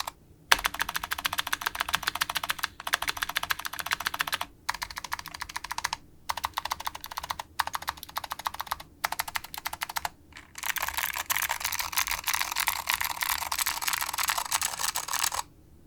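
Fast typing on a custom mechanical keyboard with vintage Alps SKCM Blue clicky switches on a POM plate, under SGI Granite keycaps: rapid runs of sharp key clicks broken by short pauses. A longer, denser run near the end stops shortly before the close.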